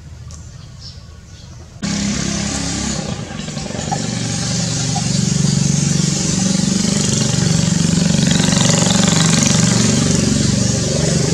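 Loud, steady motor-vehicle engine noise that starts abruptly about two seconds in and holds. Faint bird chirps come before it.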